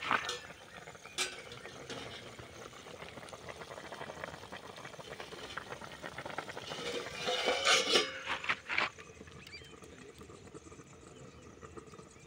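Scattered knocks and clinks of cooking utensils and pots, a few sharp strikes over a low background hiss.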